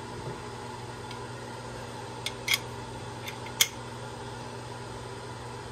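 Compression-tester hose and adapter being screwed into a spark plug hole, giving four sharp light clicks between about two and four seconds in, over a steady background hum.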